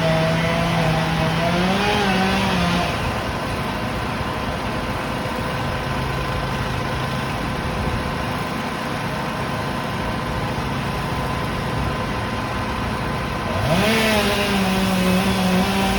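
Chainsaw running at speed, its pitch rising briefly about two seconds in, then cutting out. A steady engine hum continues underneath. Near the end the chainsaw is revved up sharply again and held at speed.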